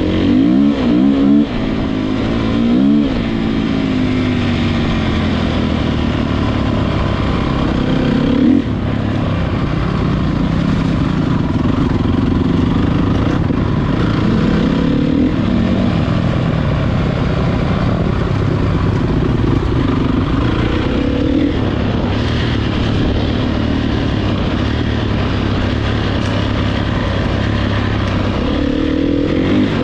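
Motocross bike engines racing, revving up and down repeatedly, over a steady din of engine noise.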